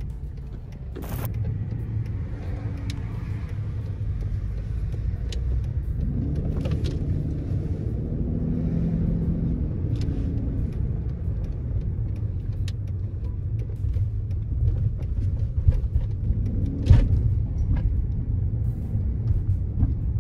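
In-cabin sound of a 1995 Mercedes-Benz S600 (W140) with its V12 driving on a city street: a steady low rumble of engine and road that gets louder about a second in, with a few short knocks, the sharpest about seventeen seconds in. The freshly rebuilt front suspension is quiet, while the driver still hears noise from the rear.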